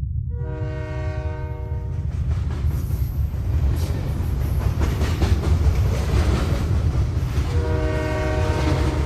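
Train running with a heavy steady rumble and rail clatter, its horn sounding twice: a blast of about a second and a half near the start, and another beginning near the end.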